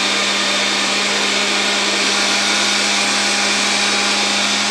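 Electric kitchen appliance motor running steadily with a constant hum and whine, cutting off abruptly at the very end.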